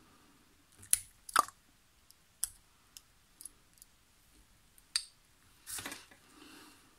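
Fine metal tweezers clicking and scraping against a die-cast toy car's baseplate, wheels and axle while prying the wheels out. A string of sharp clicks, the two loudest about a second in, and a short scrape near the end.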